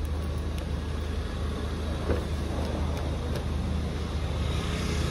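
Car engine idling with a steady low hum, with a few light clicks and a small knock about two seconds in as the car door is handled and opened.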